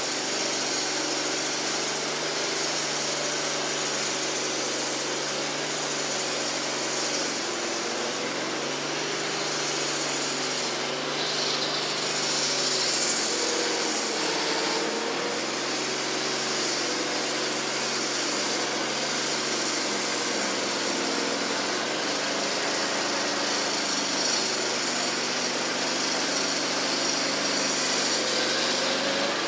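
Wood-Mizer LT15 portable band sawmill running steadily as it saws through a hard maple log, the engine drone under a high hiss of the band blade in the wood. The engine note sags briefly about halfway through, then recovers.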